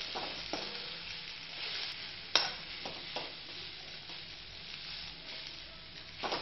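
A utensil stirring and scraping boiled potatoes with fried onions around a pan on the flame, over a low sizzle of a little mustard oil. Several scraping strokes, with a sharper knock against the pan about two and a half seconds in.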